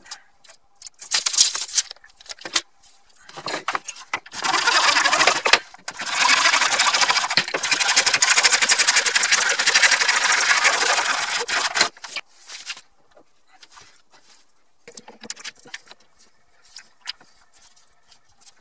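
Handsaw cutting through a grey PVC drain pipe held in a wooden miter box: a short start, a brief pause, then about six seconds of steady sawing that stops abruptly. Light scrapes and knocks of the pipe being handled before and after the cut.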